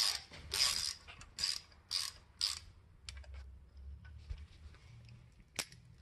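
Ratchet wrench clicking in quick strokes, about two a second, as it turns a 4.6 4-valve modular V8 over by hand. The strokes stop about two and a half seconds in, leaving a few light clicks and one sharp click near the end.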